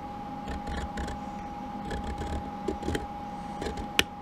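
Faint scraping and ticking from a large variable resistor's knob being turned by hand, with one sharp click near the end.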